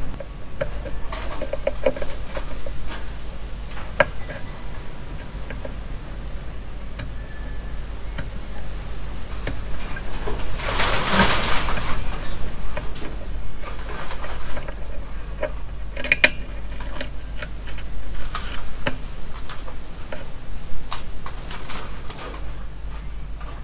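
Small hand tools clicking and scraping against a steel valve-radio chassis and its wiring, in scattered light clicks over a steady low hum. A longer rush of noise comes a little before the middle.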